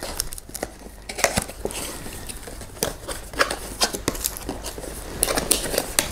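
A paperboard perfume box being opened by hand, its flaps pulled open and unfolded: irregular rustling and scraping of card with sharp clicks, busier near the end.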